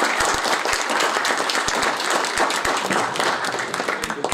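Audience applauding, a dense wash of many hands clapping that thins out and dies away near the end.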